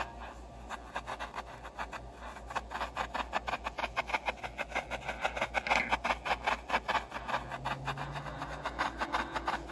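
Fingers rubbing together in front of a 40 kHz ultrasonic transducer, made audible by a homemade ultrasonic arc detector and played through its speaker as a rapid run of scratchy clicks, louder in the middle. A steady low hum runs underneath.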